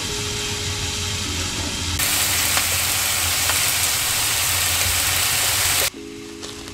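Chicken and eggs frying in pans on a gas hob: sizzling, much louder from about two seconds in, over a steady low hum. The sizzle cuts off abruptly near the end, leaving quieter sustained background music notes.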